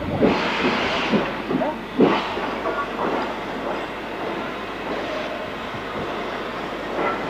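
Steam locomotive working past at close range, with strong exhaust chuffs about a second apart, the loudest about two seconds in, then a steadier rumble and hiss of steam as it rolls on.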